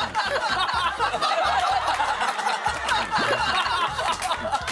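Several people snickering and chuckling together over light background music.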